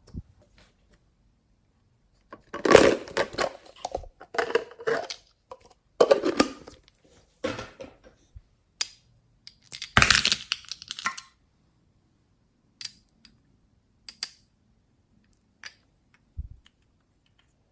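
Hands squeezing and pressing slime: several bursts of sticky crackling and popping clicks over about eight seconds, then a few single clicks near the end.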